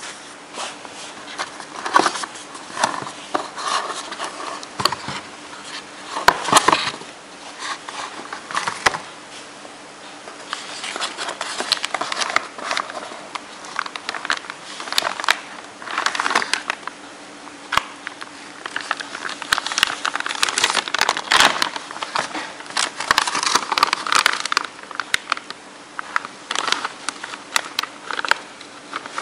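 Cardboard packaging and the plastic anti-static bag of a graphics card being handled: irregular crinkling, rustling and scraping with sharp clicks, over a faint steady hum.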